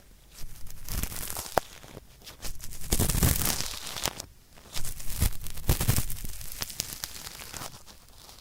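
Cotton swab rubbed hard and scratchily in a microphone's ear, the firm grinding strokes of ASMR ear cleaning for hard earwax, in three spells with one sharp click between the first two.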